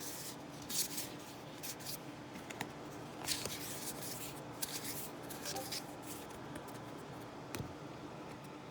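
Trading cards being handled and flipped through by hand: a scatter of short, faint papery rustles and flicks.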